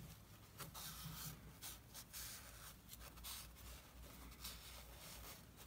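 Faint, irregular rubbing and scuffing of a gloved hand wiping an engine block's main bearing saddle with a heavy-duty shop towel, cleaning it before the bearing shell is set in.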